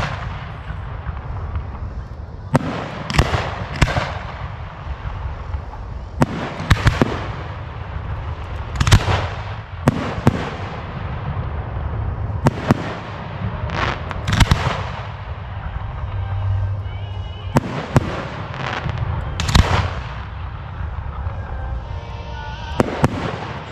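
Display fireworks going off in a steady barrage: a sharp bang about every second or so, several in quick pairs, each echoing briefly, over a continuous crackling rumble.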